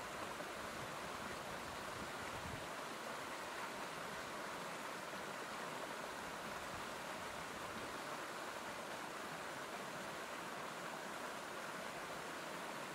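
Steady rush of a shallow rocky stream pouring over small rock cascades.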